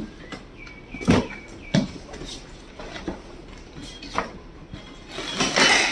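Knocks and handling noises as a shipping box of bagged aquarium fish is opened, with a few sharp knocks and a rustling swell near the end.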